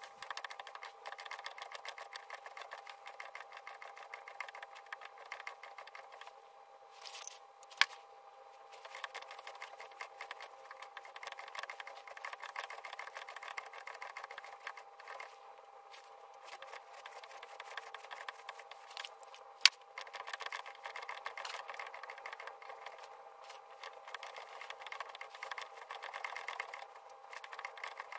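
Homemade shaping cutter on a lathe planing the teeth of a small gear, heard sped up as a rapid, faint run of fine ticks and scraping with a steady faint hum. Two sharper clicks come about 8 and 20 seconds in.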